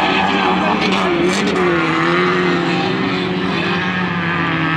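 Several race car engines running hard at once, their pitches wavering up and down as the cars accelerate and lift off.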